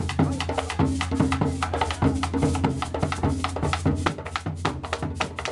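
Instrumental background music with a fast, steady percussion beat of sharp, wood-block-like clicks over short pitched notes.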